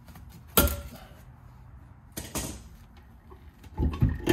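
Sharp clunks and knocks of parts and tools being handled at a camper trailer's axle mount: one loud knock about half a second in, another around two seconds, and a quick cluster near the end.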